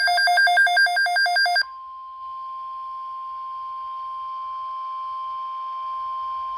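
NOAA Weather Radio emergency alert tones: a loud, rapidly warbling digital SAME header burst that stops about a second and a half in, followed by the steady single-pitch 1050 Hz Warning Alarm Tone.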